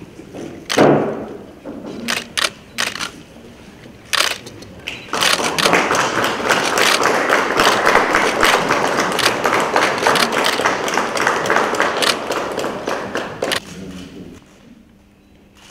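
Scattered camera shutter clicks and a thump about a second in, then a small crowd applauding for about eight seconds before it dies away near the end.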